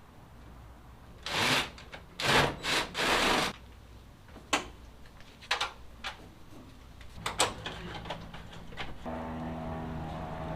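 Four short bursts of scraping noise, then scattered sharp metal clicks and clanks from hands and tools at work on a pickup's rear door; near the end a steady engine-like hum comes in.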